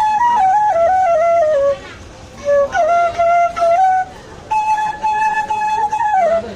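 Bamboo flute playing a melody in short phrases, stepping down and up through clear notes, with brief pauses between the phrases and the last phrase holding one note before falling away.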